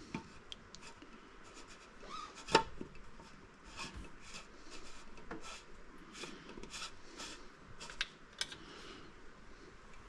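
Repeated short rubbing and scraping strokes of plumbing parts being handled and worked onto a threaded pipe fitting, with a few sharp clicks and one loud knock about two and a half seconds in.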